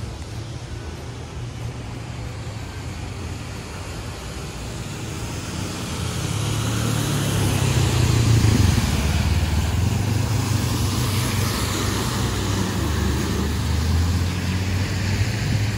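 The Aare river's fast water rushing through the gorge: a steady noise, heavy in the low end, that grows louder toward the middle and then holds.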